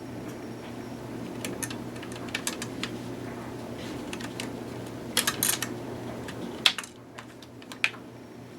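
Small screwdriver backing a tiny screw out of a laptop's internal drive mount, with scattered light metallic clicks and ticks over a low rustle of handling. The clicks come in small clusters, the loudest about five seconds in and near seven seconds, and the rustle stops about seven seconds in.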